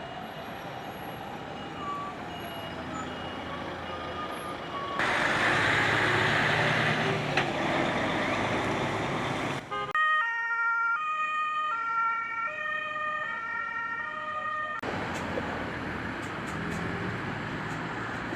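Emergency vehicle siren sounding a two-tone call that switches pitch about every half second, heard between stretches of loud rushing noise from outdoor scene footage.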